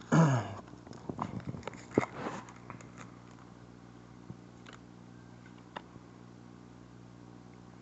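A foil Pokémon booster pack being torn open and crinkled, with a cluster of crackling clicks over the first three seconds, then only a few faint clicks.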